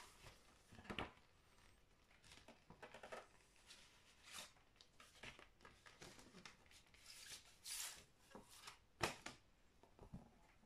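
Quiet rustling and sliding of a paper record sleeve as a vinyl LP is handled and drawn out, with a few soft handling clicks, the sharpest about nine seconds in.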